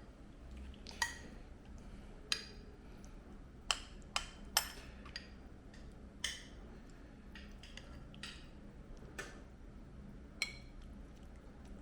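Utensils clinking against dishes: about ten sharp, irregularly spaced clinks, each with a short ring, over faint room hum.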